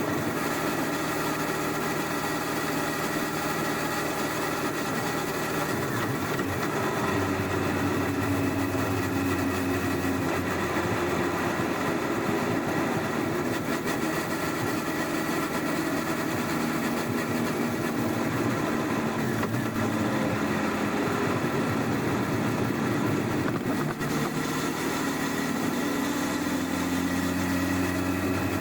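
Honda CBR1100XX Blackbird's inline-four engine on its stock exhaust, running at low, fairly steady revs, picked up from under the rear seat. Its pitch shifts slightly about seven seconds in and again near the end.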